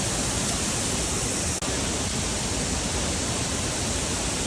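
Waterfall roaring steadily, an even rush of falling water, with a momentary dropout about a second and a half in.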